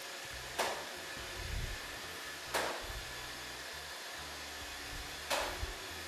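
iRobot Roomba 605 robot vacuum running across a tiled floor: a steady whirring hiss from its vacuum motor and brushes, a little shrill. Three short, sharp clicks come about two seconds apart.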